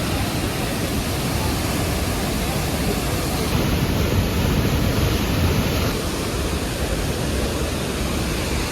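Loud, steady rush of fast-flowing water, the roar of the river and falls along the trail.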